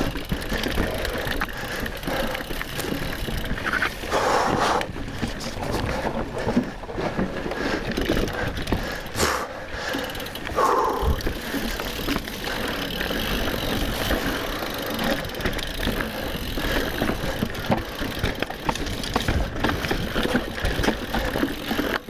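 Mountain bike descending a rough trail: tyres running over dirt, roots and rocks, with the chain and frame rattling in a steady clatter of small knocks.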